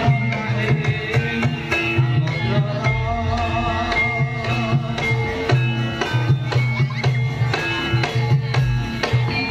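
Live Javanese gamelan (campursari) music played for a dance: hand-drum strokes keep a steady rhythm under ringing metallophone tones and a wavering melody line.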